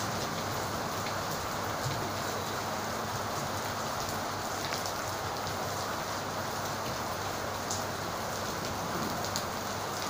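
Steady rain falling, with scattered drip ticks, over a faint low hum.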